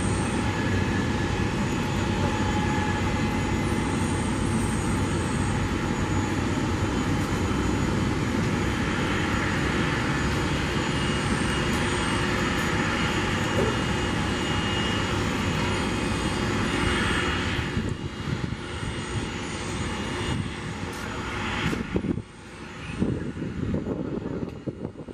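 Airbus A320-family twin-jet airliner taxiing, its jet engines at idle: a steady rushing hum with a faint whine, falling off in level near the end. Short high-pitched chirps recur in the background.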